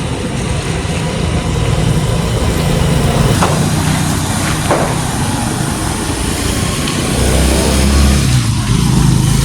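A heavy engine running steadily under a wash of outdoor noise, with a deeper, louder stretch about seven to eight seconds in.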